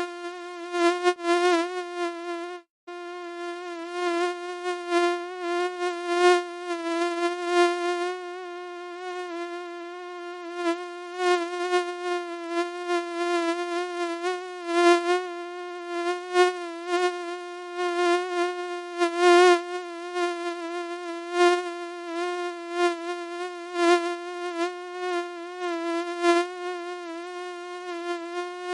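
Mosquito wing whine: a steady, high buzz that wavers a little in loudness and breaks off for a moment near three seconds in.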